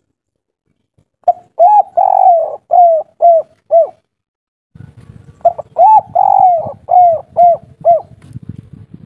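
Spotted dove cooing its 'kuk 3' song twice: each phrase is two short coos, one long drawn-out coo, then three short closing coos. From about five seconds in, a low crackling noise and a faint steady hum lie under the second phrase.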